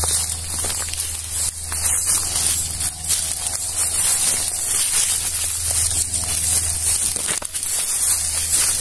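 Footsteps crunching on dry leaf litter and brushing through undergrowth, heard as scattered crackles over a steady high hiss and a low hum.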